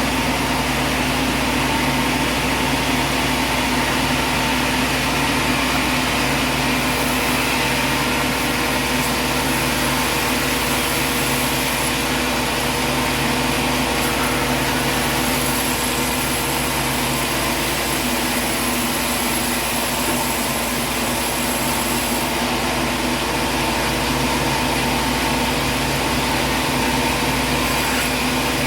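A machine running steadily: a constant hum with a hiss over it, with no pauses and no separate strokes or impacts.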